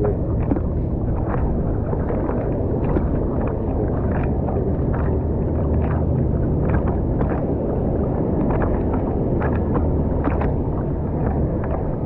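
Low, steady rumble of wind on the camera microphone while sitting on a surfboard at sea, with small splashes of water against the board about once a second.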